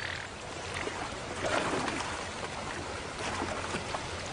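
River water splashing and sloshing as hippopotamuses move in the water, pushing a floating wildebeest carcass between them.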